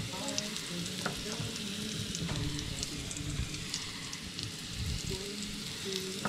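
Chicken of the woods mushroom pieces sizzling in hot coconut oil in a frying pan, with a steady hiss and many small scattered pops.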